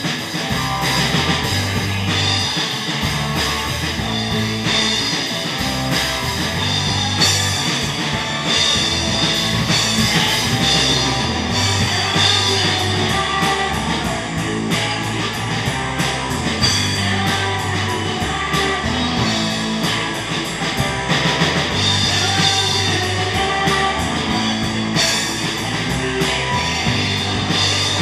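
Live rock band playing through PA speakers: electric guitar over bass and a drum kit, continuous and loud.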